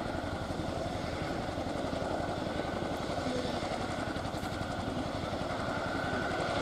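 Boeing CH-47F Chinook's tandem rotors turning with the helicopter on the ground, a rapid steady beat over the steady high whine of its two turboshaft engines, growing slightly louder toward the end.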